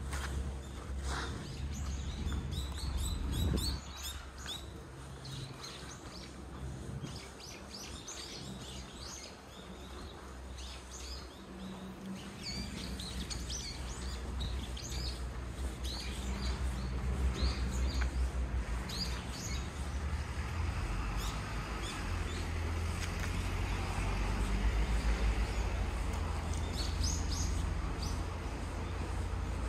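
Small birds chirping and twittering again and again over a steady low rumble, which grows louder about halfway through.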